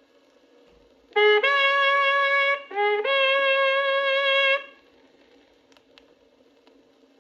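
Cavalry bugle call on a Waterloo-era bugle: two long notes, each starting on a short lower note and stepping up to a held higher one, then silence but for record hiss.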